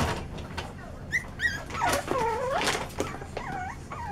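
Five-week-old Yorkshire terrier puppies playing, giving a few short high whines and yips, the longest about two seconds in. Under the calls, the newspaper they are standing on rustles.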